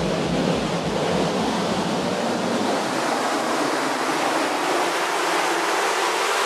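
Electronic ambient music made from looped, heavily processed French horn: a dense, surf-like wash of sound with no clear notes. A low pulsing throb fades out in the first two seconds, and the deep end keeps thinning out as the wash goes on.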